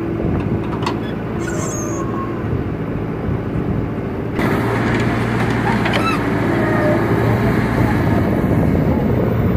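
JCB 3DX backhoe loader's diesel engine running steadily as the machine works its hydraulic arm to dump soil and swing away. About four seconds in the sound abruptly gets louder and harsher.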